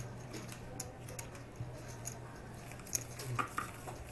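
Playing cards being slid and gathered by hand across a felt poker table, with scattered light clicks, a few sharper ones near the end.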